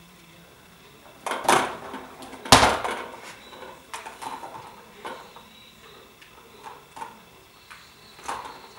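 Bengal cats and kittens playing with toys and moving about: a series of knocks and clatters, the loudest a heavy thump about two and a half seconds in, followed by lighter ticks and taps.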